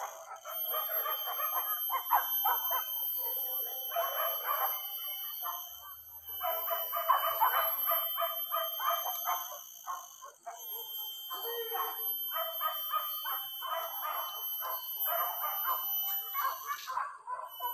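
A pack of hunting dogs barking and yelping in a dense, ongoing chorus, with brief lulls.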